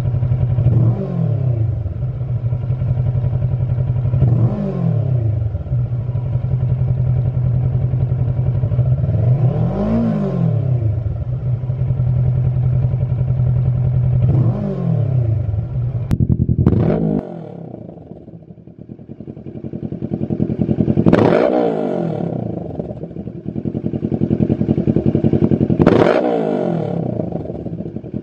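Kawasaki Versys 650's parallel-twin engine idling with short throttle blips: first through the stock silencer, revved four times, then, after a cut about seventeen seconds in, through a Lextek XP8C aftermarket silencer, revved twice.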